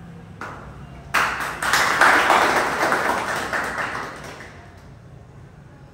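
Applause from a small group of people, breaking out suddenly about a second in and dying away after a few seconds.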